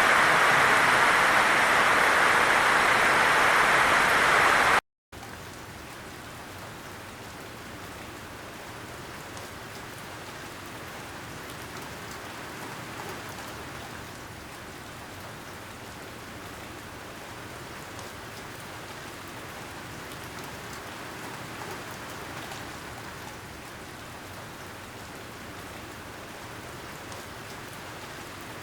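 Steady rain, loud at first, cutting out abruptly for a split second about five seconds in. It then continues as softer, even rainfall.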